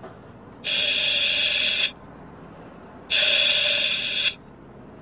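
Electronic alarm tone sounding in long, steady beeps, each a little over a second long, twice about two and a half seconds apart.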